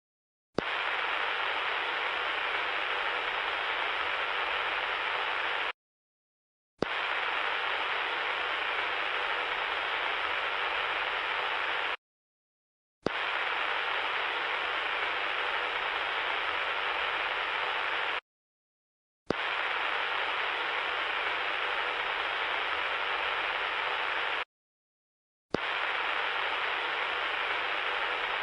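A steady hiss that comes in blocks about five seconds long, each starting and stopping abruptly, with a second of dead silence between them, repeated five times.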